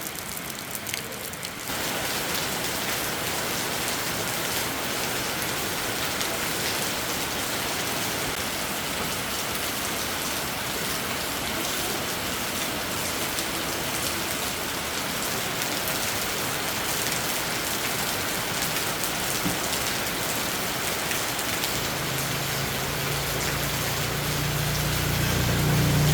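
Heavy rain falling steadily in a storm, getting louder about two seconds in. A low rumble joins near the end.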